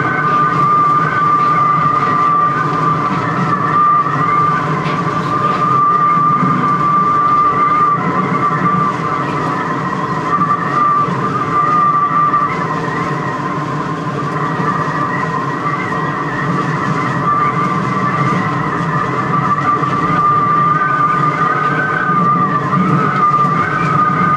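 Düsseldorf Airport SkyTrain suspended monorail running at steady speed along its overhead track, heard from inside the car: a steady high whine that wavers slightly in pitch, over a low rumble from the running gear.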